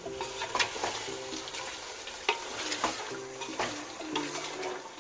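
A wooden spatula stirs chicken and whisked yogurt in a metal pot of frying korma, giving irregular knocks and scrapes against the pot over a steady sizzle. Soft background music plays underneath.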